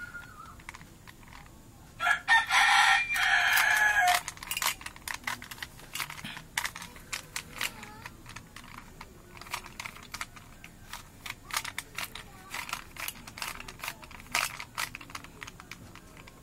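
Plastic Rubik's cube layers clicking and clacking as they are turned by hand, in quick irregular runs of clicks. About two seconds in, a loud drawn-out pitched call lasting about two seconds sounds over it.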